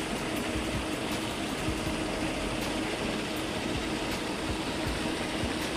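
A steady machine hum with a constant low note over a continuous rushing noise, with irregular low thuds underneath.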